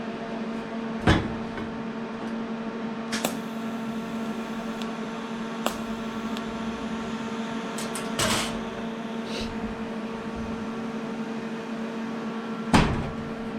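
Steady electrical hum of a TIG welder while a gap in a stainless steel exhaust joint is welded with filler rod, broken by a handful of sharp clicks and knocks.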